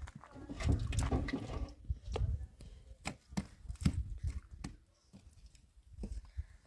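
Wood knocking and clattering as pieces of firewood are handled and pushed into a stone hearth: a busy run of knocks at first, then single sharp knocks spaced about half a second apart.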